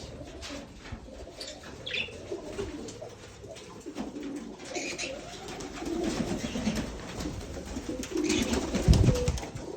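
Pigeons cooing repeatedly in a small room, with a few short higher-pitched chirps from parakeets. A low thump near the end.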